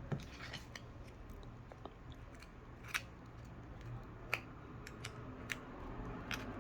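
Faint scattered clicks and scraping from a thin flat pry tool working between a Samsung J530F's screen and frame, cutting through the screen adhesive, with a few sharper ticks spread through.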